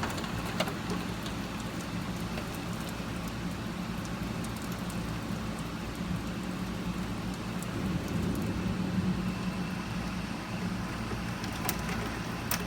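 Steady rain from a pop-up thunderstorm, falling as an even hiss with a low steady hum underneath and a few sharp clicks near the end.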